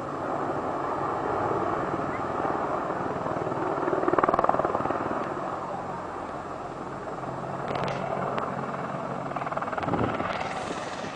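AH-64 Apache attack helicopter flying, its rotor beating rapidly and steadily, swelling loudest about four seconds in.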